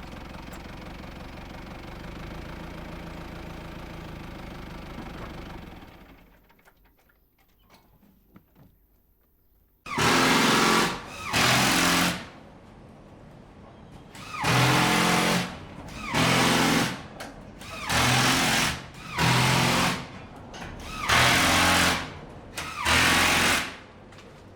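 A construction machine's engine runs steadily and fades out about six seconds in. After a few seconds of quiet, a power tool runs in eight short bursts of about a second each, with pauses between.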